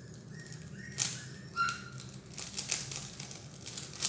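Plastic 3x3 Rubik's cube being turned quickly in the hands: an irregular run of clicks and clatters from its layers snapping round, the sharpest about a second in, around two and a half seconds in, and near the end.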